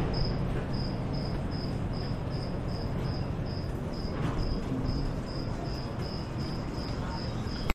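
A cricket chirping in an even rhythm, two or three high chirps a second, over a steady low background rumble.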